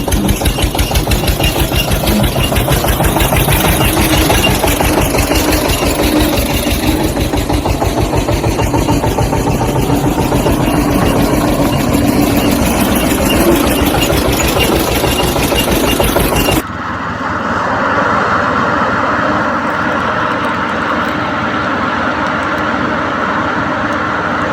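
A tractor engine running with a fast, even thudding beat. About two-thirds of the way through it cuts suddenly to a steadier, thinner engine hum without the low thud.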